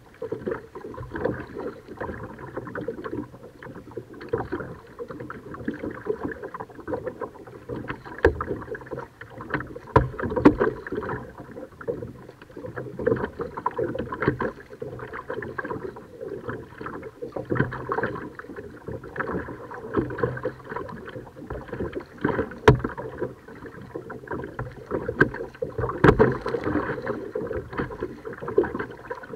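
Kayak paddling: paddle blades dipping and splashing, with water moving along the hull in uneven swells every second or two. There are a few sharp knocks along the way.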